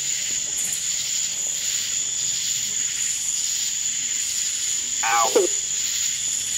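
Night insects trilling steadily on one high note. About five seconds in, a short voice-like sound falls quickly in pitch from a spirit box's radio sweep, taken by the ghost hunters as the word "out".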